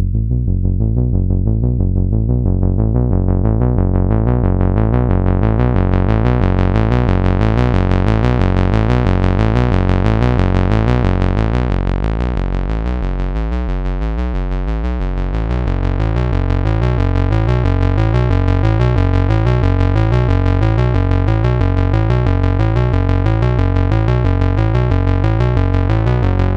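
Roland SH-101 monophonic analogue synthesizer playing a fast repeating bassline from its internal sequencer. The filter opens over the first several seconds so the tone grows steadily brighter. The pattern briefly thins and dips around the middle, then runs on bright.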